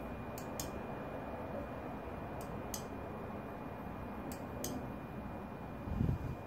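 Pairs of sharp clicks about every two seconds from the hand-held control switch of LED warning light bars being tested, over a faint steady high whine. A short low thump near the end.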